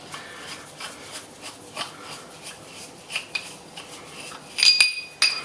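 Metal parts of a freshly machined seal tool being handled: soft rubbing and shuffling, then near the end a few sharp metallic clinks that ring briefly.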